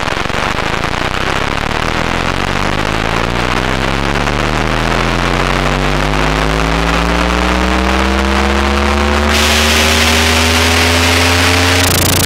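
Droning sound-design tone with many overtones, slowly rising in pitch; a hiss joins about nine seconds in.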